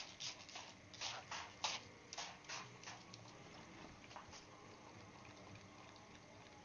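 Trigger spray bottle squirting bleach onto denim jeans in a quick run of short sprays, about three a second, thinning out and stopping about four seconds in.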